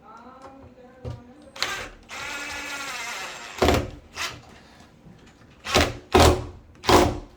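Power driver driving a screw into a door hinge: its motor whirs for about a second and a half, then five short, loud thuds follow in the second half as the screw is driven home.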